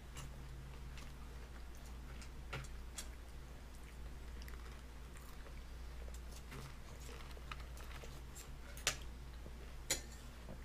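A toddler handling and eating fried food on a plastic high-chair tray: scattered small clicks and taps with some chewing, two sharper clicks near the end, over a steady low hum.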